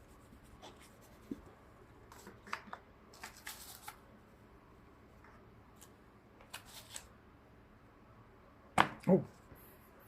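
Keyboard packaging being handled during unboxing: scattered cardboard and paper rustles and light taps, with a busier stretch of rustling a few seconds in, then two loud knocks in quick succession near the end.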